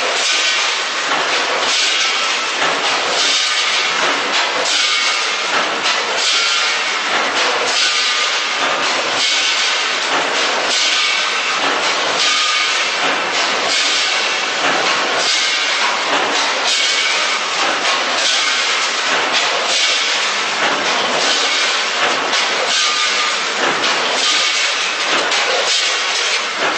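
ATM 420W automatic snack packing machine running: a steady hissing, clattering mechanical noise that pulses in a regular repeating cycle.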